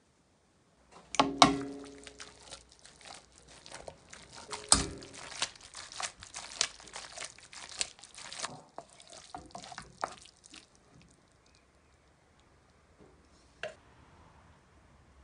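A plastic spatula stirs pesto into trofie pasta in an aluminium frying pan: wet, sticky scraping and clicking, with two sharp knocks against the pan, about a second in and near five seconds, that ring briefly. The stirring stops about ten seconds in, followed by near quiet and a single tap near the end.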